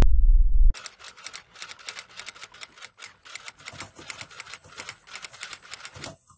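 A deep rumble cuts off suddenly under a second in, then keys are typed rapidly: quick, irregular clicking at several keystrokes a second, with brief pauses.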